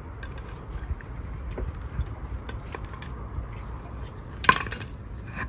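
A metal knife blade scraping and ticking against concrete patio pavers as it is worked into the joints to pry one paver loose, with a louder metallic clatter about four and a half seconds in as the knife meets the paving.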